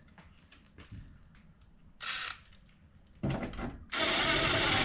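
Scattered faint clicks and handling knocks, then a short hiss about two seconds in and a louder, dense rush of noise from about three seconds in that cuts off abruptly near the end.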